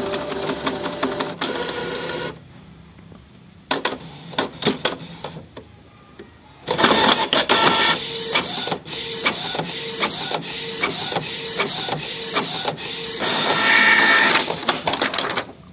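Canon PIXMA iP2770 inkjet printer printing a nozzle check page: the printhead carriage shuttles back and forth with a mechanical whir. There is a quieter stretch of scattered clicks in the first half, then steady running that stops suddenly near the end as the page is fed out.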